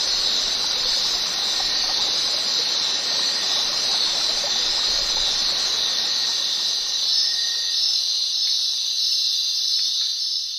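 Steady rushing water noise with a strong, steady high-pitched hiss on top. The lower rush drops away about eight seconds in, and the hiss then begins to fade.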